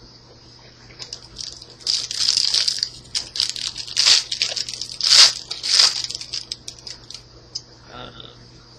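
A foil Yu-Gi-Oh! Strike of Neos booster pack wrapper crinkling and being torn open, with a run of rustles and several sharper rips in the middle. A steady high-pitched hiss runs underneath.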